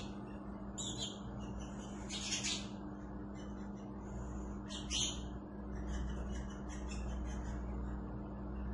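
Marinated beef tikka pieces sizzling quietly as they sear in a frying pan, with a few short spurts of crackling, over a steady low hum.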